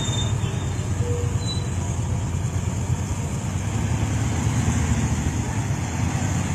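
Heavily loaded semi-truck driving past, its engine a steady low rumble.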